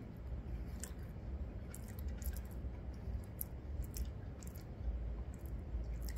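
A person chewing a bite of a soft, sweet soybean-filled snack close to the microphone, with scattered small wet mouth clicks over a low steady rumble.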